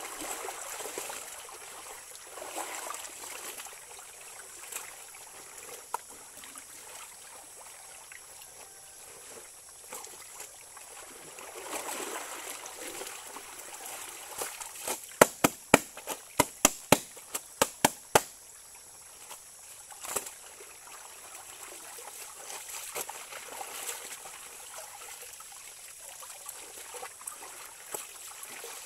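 Shallow stream running over pebbles while wet clothes are dunked, sloshed and wrung out by hand in the water. About halfway through, a quick run of about a dozen sharp slaps over some three seconds.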